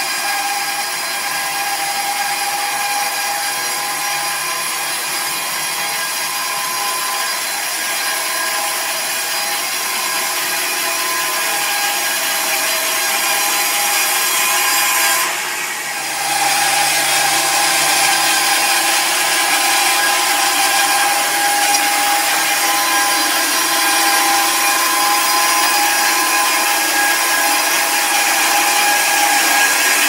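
Portable band sawmill running, its band blade sawing lengthwise through a squared log with a steady whine over the cutting noise; the sound dips briefly about halfway and then carries on.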